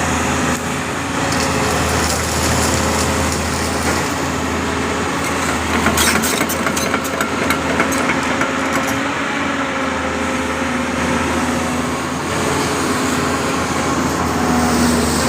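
Doosan 225 hydraulic excavator's diesel engine running steadily under load, with a burst of sharp cracking and snapping about six seconds in that lasts a few seconds.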